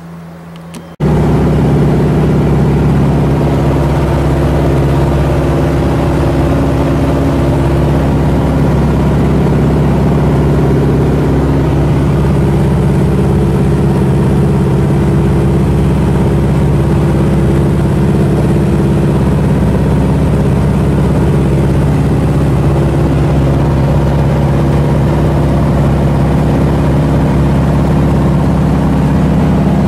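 Cabin noise of a de Havilland Beaver floatplane in flight: the piston radial engine and propeller drone loudly and steadily. The drone cuts in abruptly about a second in.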